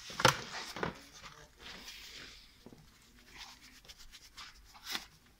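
Handling sounds of an Intel desktop processor being lifted out of its motherboard socket: a sharp click about a quarter second in, another near one second, a soft rub around two seconds and a further click near five seconds.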